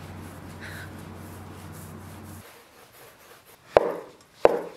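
Hands rolling dough into a log on a wooden cutting board with a soft rubbing sound, then a kitchen knife cutting the dough into portions, knocking sharply on the wooden board twice near the end.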